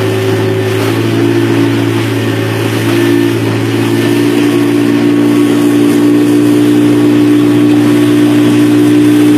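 Outboard motor of a small open boat running at speed, a steady engine drone. Its pitch shifts slightly about three seconds in, and it grows a little louder through the second half.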